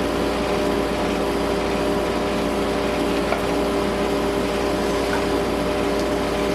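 Air conditioner running with a steady hum and hiss.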